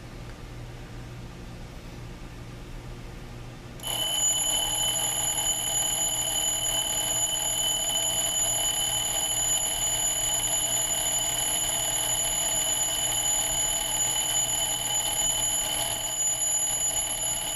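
Mechanical bell alarm of a metal antique-style mantle alarm clock going off about four seconds in and ringing steadily and continuously from then on.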